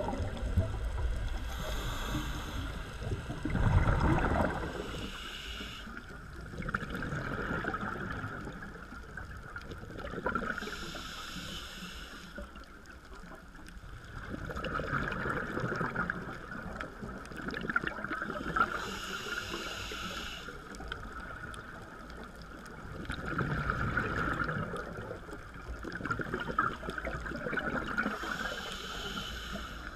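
Scuba diver breathing through a regulator, heard underwater: a short hissing inhale about every eight to nine seconds, each followed by a longer stretch of exhaled bubbles gurgling.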